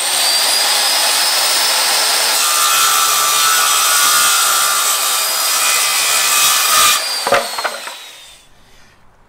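Corded circular saw cutting across a pine board: a high motor whine over the noise of the blade going through the wood for about seven seconds. Then the cut ends, the motor winds down with a falling whine, and there are a few knocks.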